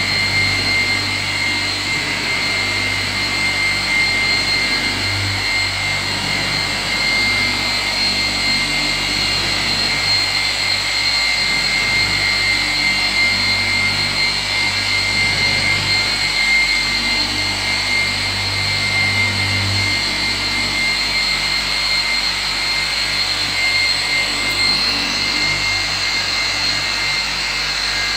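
Electric car polisher running continuously with a steady high whine as its foam pad buffs a car's paintwork.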